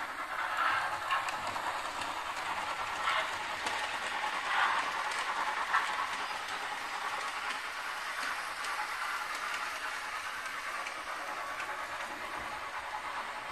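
Fleischmann class 86 model steam tank locomotive running along the layout's track: a steady running noise from the motor and wheels on the rails, with a few louder clicks over points and rail joints in the first six seconds.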